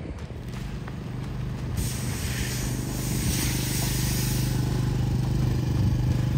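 An engine running steadily at an even pitch, growing louder over the first few seconds. A hiss rises over it about two seconds in and dies away around four seconds.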